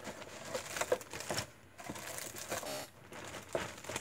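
Handling noise: scattered light clicks and plastic rustling.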